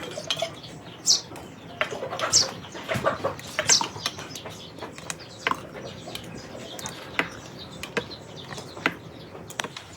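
Birds chirping in short, sharp, downward-sweeping calls, loudest in the first four seconds, mixed with scattered light clicks.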